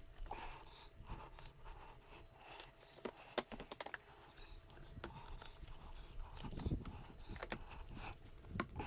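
Scooter tubeless rubber tire being worked onto its wheel rim by hand: irregular clicks, knocks and short scrapes of rubber and metal being handled.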